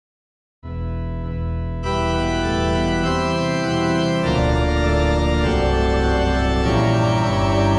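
Opening title music of sustained organ chords, starting about half a second in after a moment of silence. It grows fuller about two seconds in and moves to new chords twice.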